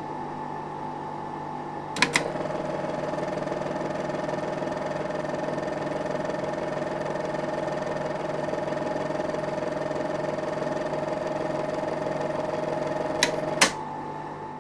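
A steady machine hum. A pair of clicks about two seconds in brings in a higher buzzing whir, which runs evenly until another pair of clicks stops it near the end. The hum then fades away.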